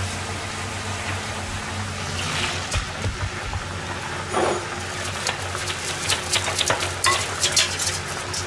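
Steady electrical hum of an induction cooktop heating a pot of stock. From about four seconds in, a plastic bag of udon noodles is handled over a steel sink, crinkling and clicking more and more busily.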